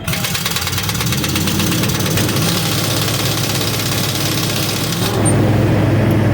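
Air impact wrench hammering rapidly on a truck's wheel lug nuts for about five seconds, starting suddenly, over a truck's diesel engine idling. The engine note wavers up near the end as the engine revs to build air pressure.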